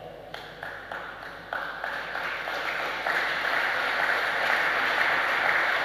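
Audience applauding, starting thin and building over the first three seconds into steady applause.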